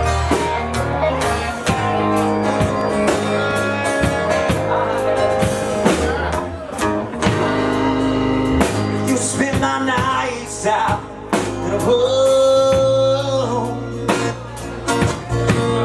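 A live band playing a slow, blues-tinged country ballad, with electric guitar, bass and drums, the lead lines bending in pitch.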